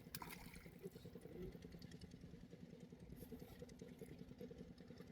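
Faint, steady low engine hum with a fine rapid pulse.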